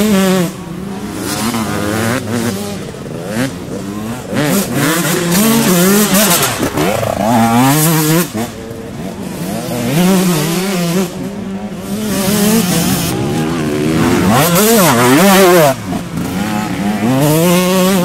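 Off-road enduro motorcycle engine revving, its pitch rising and falling many times as the throttle is opened and closed.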